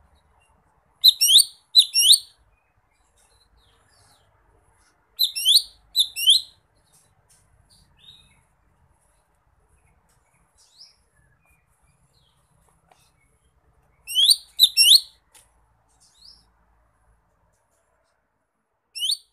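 Cucak ijo mini (lesser green leafbird) calling: four loud bursts of two or three quick rising whistled notes, several seconds apart, with faint chirps between. This is the call it uses to challenge a rival.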